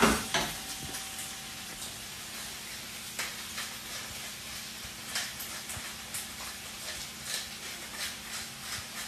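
Food frying in a pan on a stovetop: a steady sizzle with scattered, irregular crackles and pops.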